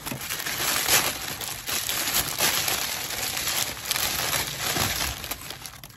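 Tissue paper crinkling and rustling in the hands as a ribbon is worked off a wrapped gift, a continuous run of small crackles.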